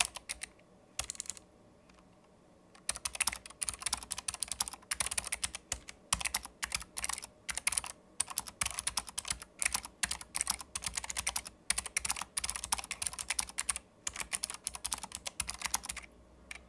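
Fast typing on a Keychron low-profile mechanical keyboard with optical switches: rapid key clicks, a pause of a couple of seconds early on, then a steady run of keystrokes.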